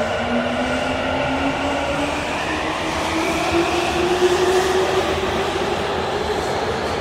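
Subway train pulling out and accelerating: its electric traction motors give a whine that rises steadily in pitch over the rumble of the cars rolling along the track.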